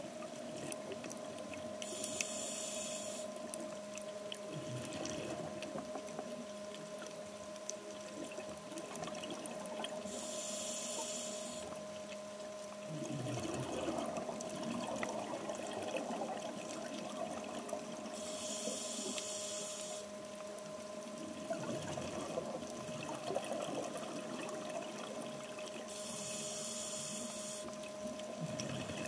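A scuba diver breathing through a regulator, heard underwater through the camera housing. A hiss of inhaled air comes about every eight seconds, four times, and exhaled bubbles gurgle in between, over a faint steady hum.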